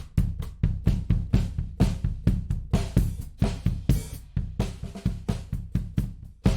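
Recorded drum kit playing a steady groove of kick, snare, hi-hat and cymbal, run through a tape-emulation plugin.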